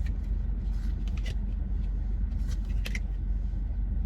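Baseball trading cards being flipped through by hand, with several short crisp flicks as cards are slid off the stack, over a steady low rumble inside a car.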